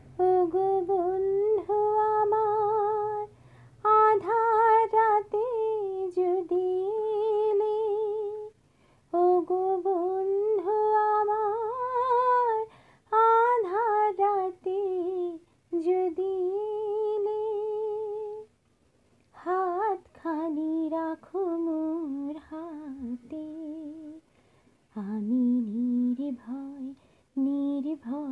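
A woman singing solo and unaccompanied, in long held phrases separated by short breaths. Near the end the melody drops to a lower register.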